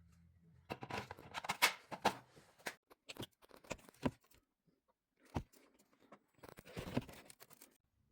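Handling noises: irregular rustling and clicking, with a single sharp knock about halfway through and a last burst of rustling near the end.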